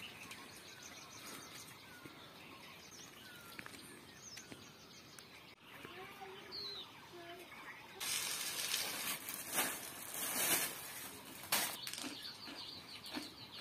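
Faint scattered bird chirps over quiet outdoor ambience. About eight seconds in, a louder hissing noise with a few sharp clicks takes over.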